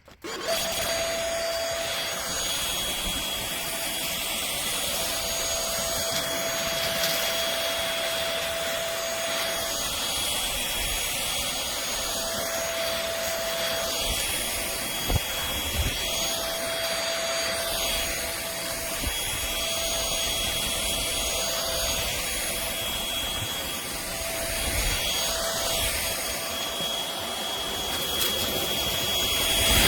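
Trucozie cordless stick vacuum running steadily, a rushing motor noise with a high whine, its sound sweeping every two to three seconds as it is worked. It gets briefly louder near the end.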